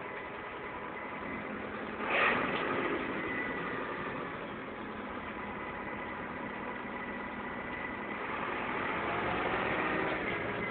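Car running, heard from inside the cabin as a steady noise with a faint whine. About two seconds in there is a sudden loud rush that fades away, and the noise swells again near the end.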